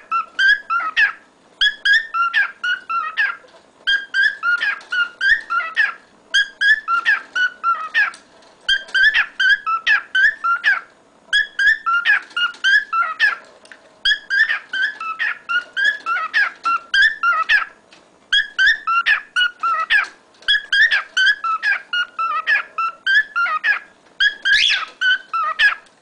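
Male whiteface cockatiel singing: warbling phrases of quick, chirpy whistles, each a second or two long, repeated with short pauses.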